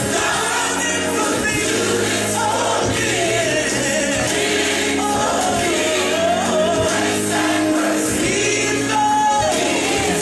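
Gospel song: a choir and a lead voice singing over a full band accompaniment with a steady bass line.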